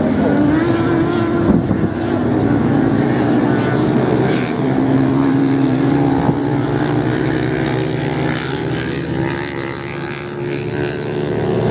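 Several racing motorcycles running on a sand track, their engines revving up and down as they accelerate and corner, with overlapping engine notes.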